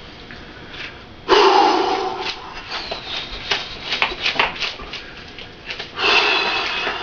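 Rapid punches thrown at the air to make a whipping sound: a sudden loud rush about a second in, then a quick run of short swishes, several a second, and another rush near the end.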